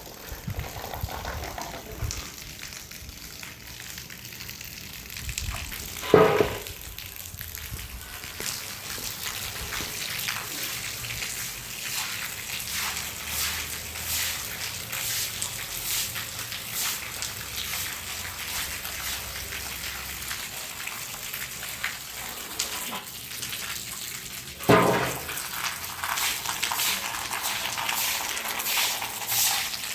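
Water running and splashing, with many small clicks throughout. Two short, loud pitched cries stand out well apart.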